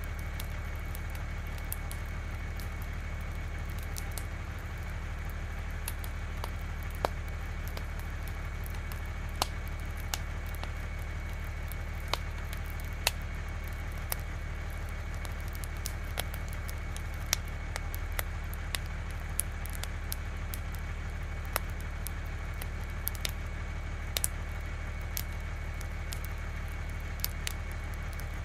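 Fire crackling, with irregular sharp pops about once a second, over the steady low rumble of an idling fire engine and a faint steady high whine.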